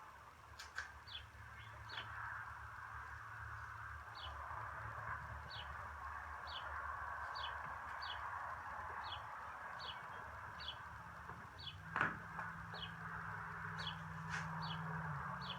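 A bird calling over and over, short high falling chirps roughly once or twice a second, over a steady low hum. A single sharp click about twelve seconds in.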